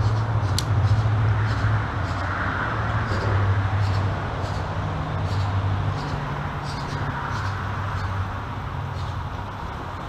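Road traffic on the bridge overhead, a steady low rumble and hum with faint scattered ticks.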